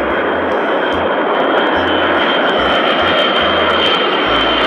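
Four-engine Boeing 707-type military jet flying low on approach with its gear down: a steady loud engine roar with a high whine on top.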